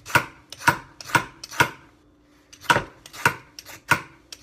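A hand-held vegetable peeler shaves thin ribbons off a raw butternut squash: short scraping strokes about twice a second. There are seven strokes, with a pause of about a second midway.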